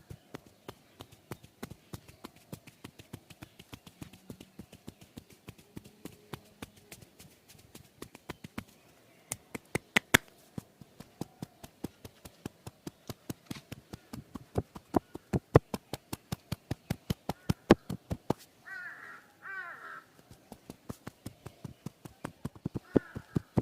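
Rapid, rhythmic hand-tapping massage strokes, about four sharp strikes a second, louder from about halfway through. A crow caws a few times near the end.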